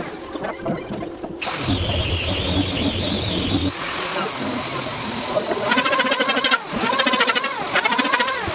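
Handheld electric power tool running against wood, its motor pitch dipping and recovering as it is worked, with a steady high whine from the tool or workshop machinery between passes.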